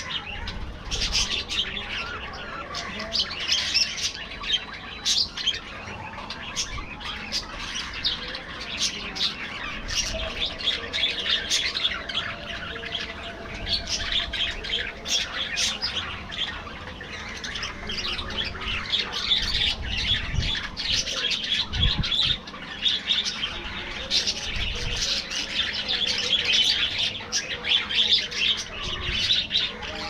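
A flock of budgerigars chattering: a continuous, dense mix of chirps, warbles and squawks from many birds at once.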